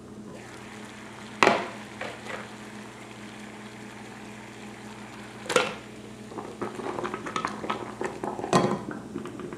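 Water at a rolling boil in a stainless steel pot, bubbling steadily, with sharp metal clanks of the lid and the can against the pot three times: about a second and a half in, halfway through, and near the end. The bubbling grows busier in the second half.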